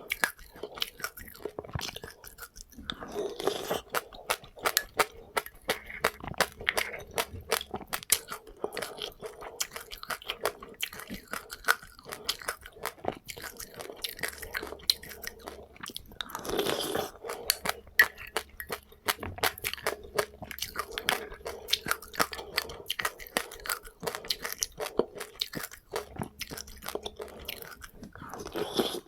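Close-up chewing of crunchy seeds eaten with passionfruit: many sharp crunches and crackles in quick, uneven succession.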